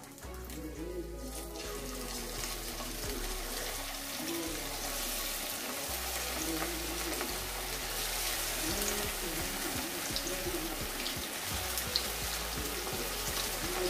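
Marinated chicken pieces dropped one by one into hot oil in a kadai, the oil sizzling and bubbling in a steady hiss that builds as more pieces go in, with a few sharp crackles near the end. Background music plays underneath.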